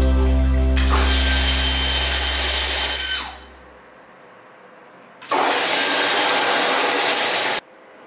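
Small electric booster water pump motor humming while water rushes from the tap. About three seconds in the water stops, and the pump motor winds down and stops as the pressure switch cuts it off. A couple of seconds later a second rushing noise sounds for about two seconds and cuts off abruptly.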